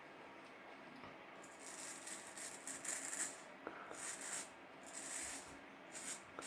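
Faint handling noise: soft, irregular rustles with a couple of light clicks, as small objects are picked up and moved about by hand.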